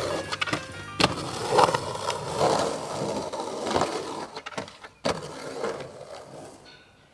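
Skateboard wheels rolling and carving across the rough concrete of an empty pool, with scattered clacks from the board. The sound breaks off and restarts abruptly twice as one run gives way to the next, then fades low near the end.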